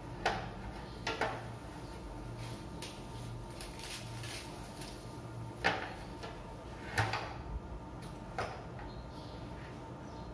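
A steady low hum with a handful of sharp, irregular knocks and clacks of household clatter, about six in ten seconds, the loudest two near the middle.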